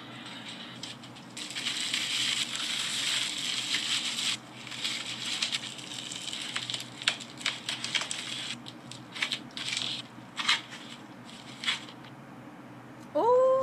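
Plastic poly mailer bag crinkling and rustling as it is handled and folded while packing an order, with small clicks and taps. A cat starts to meow right at the end.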